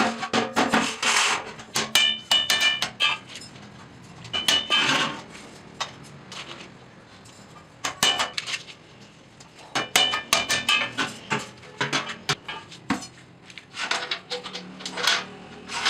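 Hammer strikes and clanks on thin sheet steel in bursts of quick blows, some leaving a short metallic ring, with a quieter pause of a couple of seconds before the blows resume.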